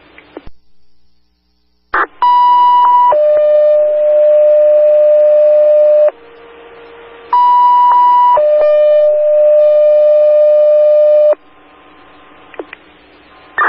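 Two-tone sequential fire pager alert tones over a scanner radio channel, paging out the fire department for a reported structure fire: a higher tone for about a second followed by a lower tone held about three seconds, sent twice. Radio hiss and short squelch clicks come before and after the tones.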